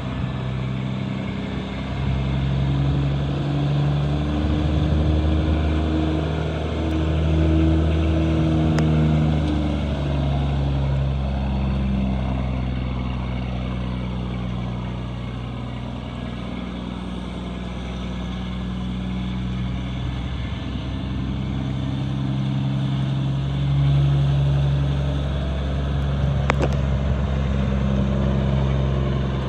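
1997 Peterbilt 378 truck tractor's diesel engine running as the truck drives slowly. The engine pitch rises and drops in steps. The sound grows quieter in the middle as the truck pulls away and louder again near the end as it comes back.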